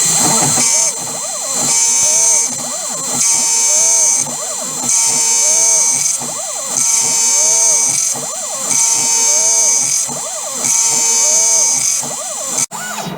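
DIY CNC mill machining, with spindle and cutter noise swelling and easing in a regular cycle about every second and a half to two seconds. The stepper motors whine up and down in pitch as the axis runs back and forth on each pass. Near the end the sound drops out with a sudden break.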